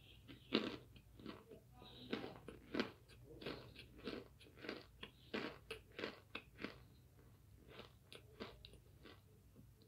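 Close-up chewing of crunchy oven-baked starch chunks: a run of sharp crunches, about two to three a second, growing weaker near the end.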